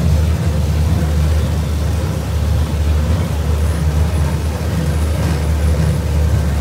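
Small amusement-park ride train running along its track, heard from aboard a carriage as a steady low rumble.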